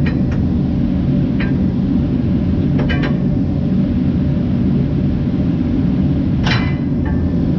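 A steady low rumble of a running machine throughout, with a few light metal clicks as the steel plow-mount bracket is shifted against the truck's frame, the loudest about six and a half seconds in.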